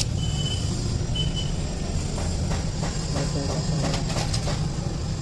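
Steel gearbox parts of a Mahindra Bolero NGT 520 transmission clicking and clinking against each other as a synchronizer and gear are worked onto the mainshaft by hand. There is one click at the start, then a cluster of short ringing clinks from about two to four and a half seconds in, over a steady low hum.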